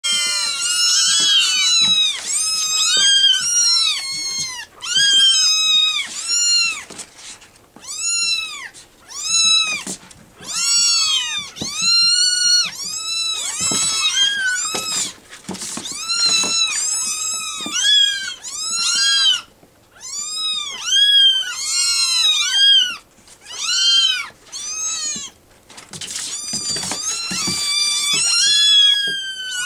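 A litter of young kittens meowing over one another: many short, high calls that each rise and fall in pitch, coming in clusters with brief lulls. They are hungry kittens demanding to be fed.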